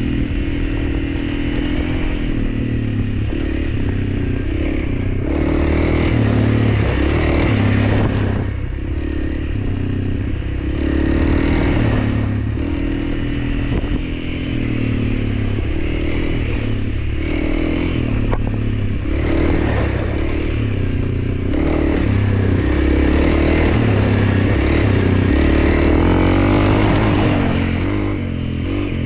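Honda CRF300L's single-cylinder four-stroke engine running under way off-road, its pitch rising and falling again and again as the throttle opens and closes.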